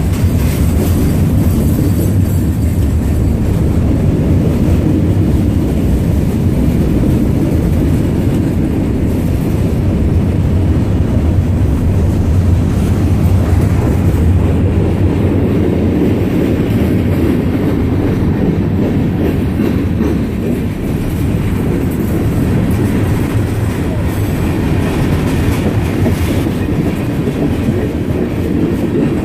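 A train rolling past, a loud, steady rumble of wheels on the rails.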